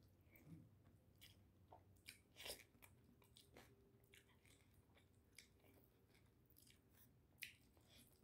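Faint chewing: a person eating, with scattered soft crunches and mouth clicks at irregular intervals and two slightly louder crunches, one about two and a half seconds in and one near the end.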